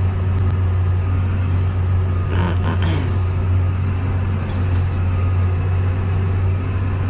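Tractor engine running steadily under load, heard from inside the cab, as it pulls a Horsch disc harrow through stubble at about 14 km/h. A brief higher sound rises over the drone about two and a half seconds in.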